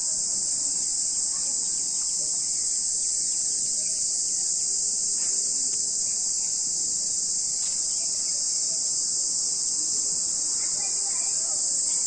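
High-pitched insect chorus, a dense, unbroken steady drone that does not vary.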